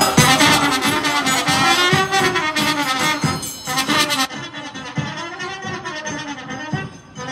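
Brass band playing a folk dance tune over a steady beat, with a bright high rattle on top that stops about four seconds in.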